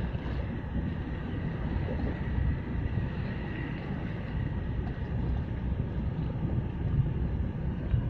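Wind buffeting the microphone as a low, uneven rumble, with a faint thin high tone in the first half.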